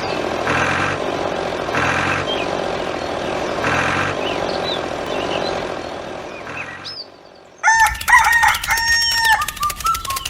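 Rooster crowing over a farmyard background with small bird chirps. About seven and a half seconds in, this gives way to a louder run of clicks and stepped tones.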